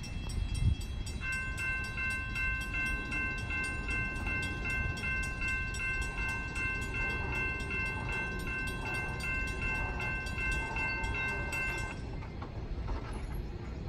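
Railroad grade-crossing warning bell ringing in a fast, even repeat over a steady ringing tone. It starts about a second in and cuts off suddenly near the end.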